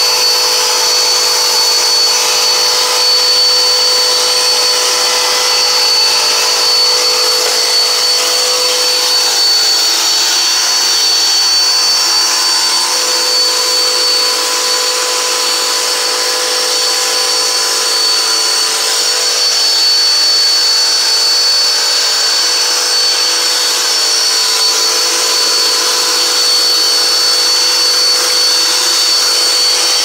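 Dirt Devil vacuum cleaner running steadily through its hose attachment, with a constant high-pitched motor whine, drawing sand up off doormats.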